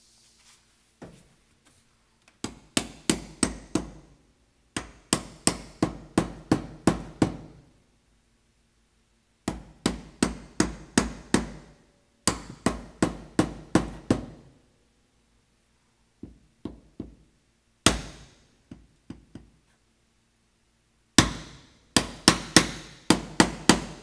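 A small hammer tapping the chrome foot-pedal air valve of a train horn to seat it in place. The sharp metallic knocks come about four or five a second, in several quick runs with short pauses between them.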